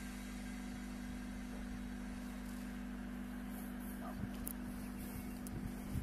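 Blackpool's Western Train heritage tram running slowly along the track, heard from on board: a steady low hum, with a few light clicks and knocks about four seconds in and near the end.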